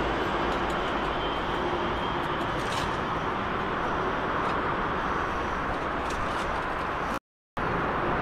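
Steady railway-station background noise with a train still faintly rumbling amid traffic and general outdoor hum. About seven seconds in, the sound drops out completely for half a second, then resumes unchanged.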